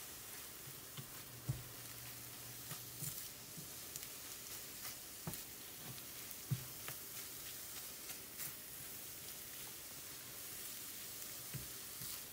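Scrambled eggs with bell peppers and onions sizzling quietly in a skillet on low heat while a rubber spatula stirs them, with light taps and scrapes of the spatula against the pan every second or two.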